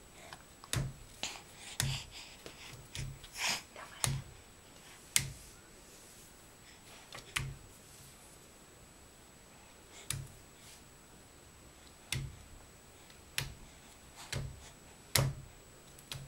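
A hand knocking on a surface: about a dozen single knocks at an uneven pace, each a dull thud with a sharp click, coming quickly for the first few seconds and then every second or two.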